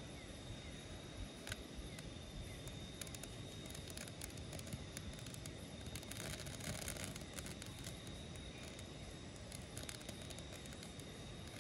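Outdoor ambience: a steady low rushing noise with a faint, steady high tone, dotted with light crackles and clicks that grow a little denser and louder about six to seven seconds in.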